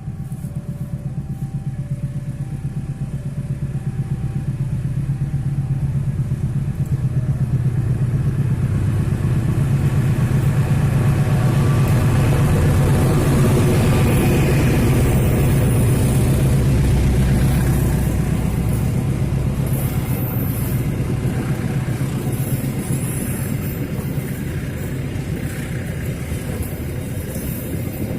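A train passing, its heavy low rumble building to its loudest about halfway through and then easing off.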